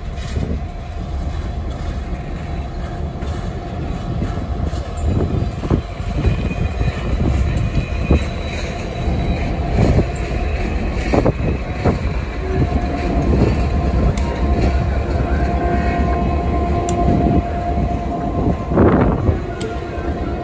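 Slow-moving train with a Southern Pacific EMD SD7 diesel locomotive passing close by: the engine's low rumble and wheels knocking over rail joints. A steady metallic squeal, likely from the wheels, is heard for a few seconds past the middle.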